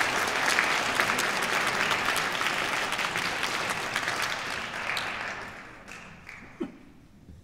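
Audience applauding, a dense patter of many hands that tapers off over the last two seconds.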